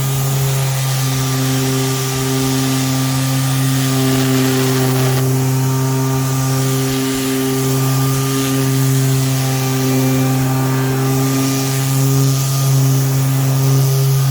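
Bauer 20 V cordless 5-inch random orbital sander (model 1817C-B) running steadily, a constant motor hum with an even sanding hiss over it; it runs without bogging down.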